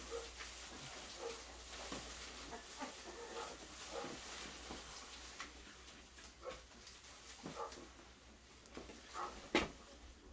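Newborn puppies faintly whimpering and squeaking in short scattered calls, with a sharp knock near the end.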